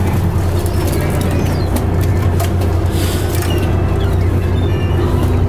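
A lobster boat's engine running with a steady low hum, under background music.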